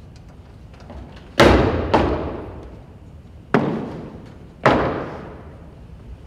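Four loud, heavy thuds at uneven gaps, each ringing on in a long hall echo: cadets' boots stamping on the stage during drill movements.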